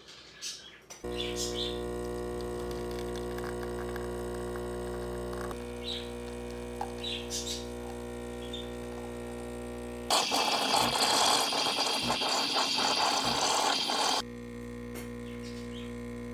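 Home espresso machine's pump humming steadily as espresso pours. For about four seconds in the middle it is covered by the loud hiss of the steam wand frothing milk, then the pump hum returns.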